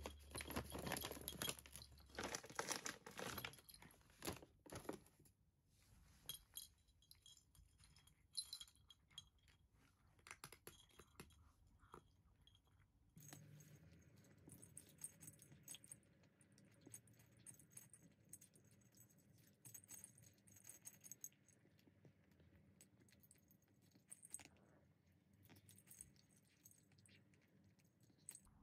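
Faint crunching of a cat eating dry kibble from a ceramic bowl, with the metal tags on her collar jingling and clinking against the bowl. A few seconds of crinkling at the start as the plastic food pouch is handled.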